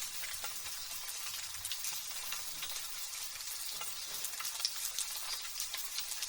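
Light drizzle: a steady fine hiss of rain with many small raindrop ticks.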